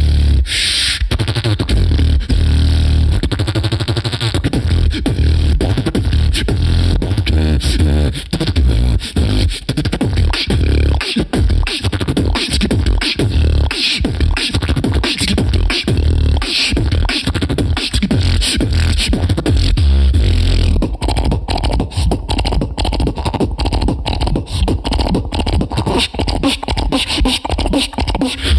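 Solo human beatboxing into a handheld microphone: a continuous beat of deep bass kicks with sharp clicked snares and hi-hats. About 21 seconds in the pattern turns denser and more clipped.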